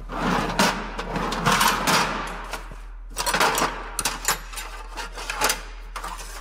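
Steel PDR rods and hand tools rattling and clinking against each other and the metal tool cart as they are rummaged through: a scraping rustle for the first two seconds or so, then a quick run of sharp clicks and clacks.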